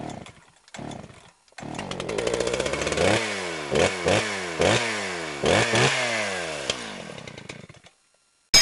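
A small gas engine sputters a few times, catches about a second and a half in, and is revved up and down several times before dying away. A single sharp, loud crack comes near the end.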